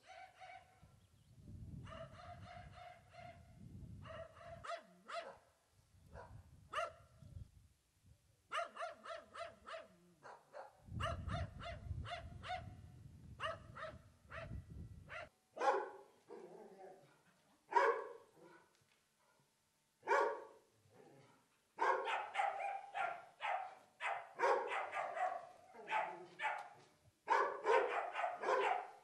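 Dogs barking in repeated bursts. Held, higher-pitched yelping calls come in the first half, and the barking grows louder and denser, with calls overlapping, over the second half.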